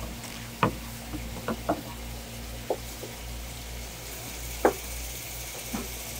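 Kitchen knife knocking and cutting on a wooden cutting board while abalone is sliced and scraped from its shell: about six sharp, irregular knocks, the loudest near the middle. Underneath is a steady hiss of running tap water and a low hum.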